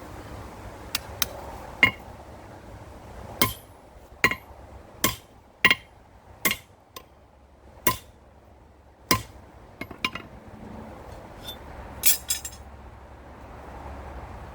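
Hammer blows on a hardened, tempered steel hammer drift on the anvil: a few light taps, then about eight hard, ringing metal-on-metal strikes, and a quick cluster of clinks near the end. It is a strike test of the drift's hardness, and the drift holds without shattering.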